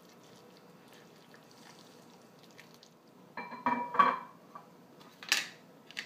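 A spatula stirring thick risotto in a ceramic casserole dish: faint for the first few seconds, then a cluster of clinks and knocks of the utensil against the dish about three and a half to four seconds in, and a short scraping rush near the end.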